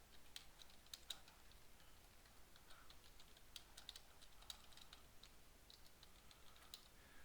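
Faint computer keyboard typing: quick, irregular keystroke clicks.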